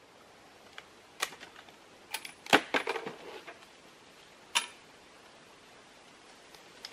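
Bolt of a Savage Model 116 .30-06 rifle being worked after a shot: a string of sharp metallic clicks and clacks. They are busiest about two and a half seconds in, with another clack about four and a half seconds in and a few more right at the end.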